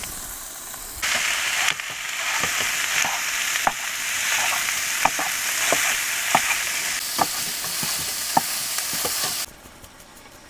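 Ground beef sizzling in a nonstick frying pan on a small propane canister stove. A spatula breaks it up, with sharp taps and scrapes against the pan. The sizzling cuts off suddenly near the end.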